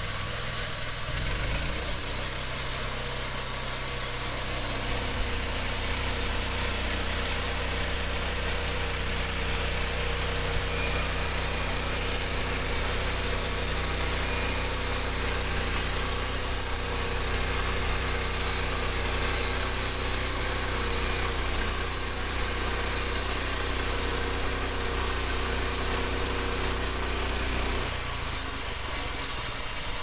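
EZ Boardwalk Jr portable band sawmill cutting through a log: its small gasoline engine runs steadily under load while the band blade saws the wood. About two seconds before the end the engine's low hum drops away.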